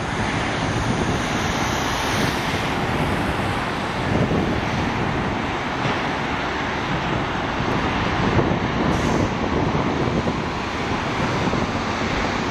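Airbus A319's jet engines at takeoff power, a steady roar as the airliner climbs away.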